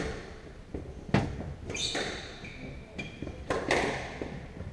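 Squash rally: the ball cracks sharply off rackets and walls several times, each hit echoing around the court, with short squeaks of shoes on the wooden floor in between.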